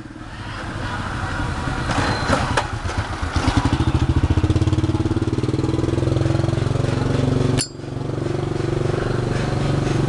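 A motor vehicle's engine running close by, its pitch gliding up and down as it builds and passes. A sharp click cuts in about seven and a half seconds in, with a brief dropout before the engine sound resumes.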